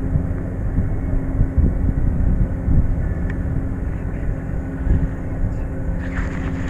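Steady low drone of a fishing boat's machinery, with a constant hum. A brief rattle of clicks comes near the end.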